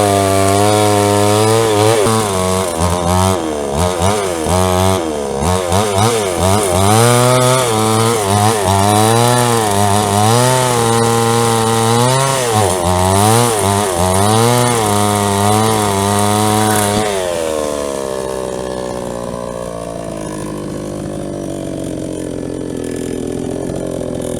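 22-inch JCK chainsaw cutting through wood, its engine pitch dipping and recovering again and again under load as the cut through the far side is finished. About seventeen seconds in, the engine drops to a lower, quieter running.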